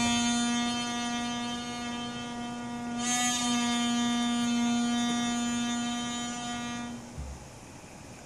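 Piri, the Korean double-reed bamboo oboe, playing solo and holding one long steady note that swells about three seconds in. The note stops about a second before the end, leaving a short breath pause.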